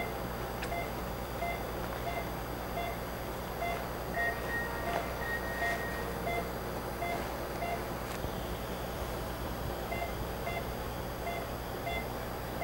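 Patient monitor in an endoscopy room beeping short, evenly spaced tones at one pitch, about three every two seconds, like a pulse tone following the heartbeat, over a steady low hum of running equipment. A longer, higher tone sounds twice near the middle.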